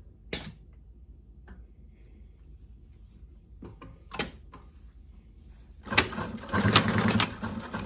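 A few faint clicks, then about six seconds in the JUKI LU-2810A-7 walking-foot industrial lockstitch sewing machine starts stitching through heavy layered nylon webbing: a rapid, even run of needle strokes.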